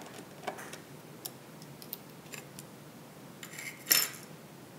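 Faint small clicks and light metallic scrapes of a small screwdriver and fingers working the screws and card of a mini PC's Wi-Fi module, with one louder brief clatter about four seconds in as the small part is handled.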